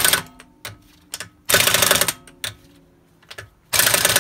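Pneumatic impact wrench hammering lug nuts down onto a car's wheel hub in three short bursts about two seconds apart, moving from nut to nut to snug them all before final torquing.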